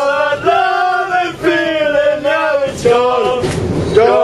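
A group of football supporters singing a chant together in long held notes that bend in pitch, phrase after phrase.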